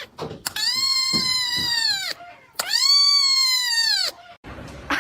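Cat yowling: two long, loud, high calls, each held level for about a second and a half and dropping in pitch at the end.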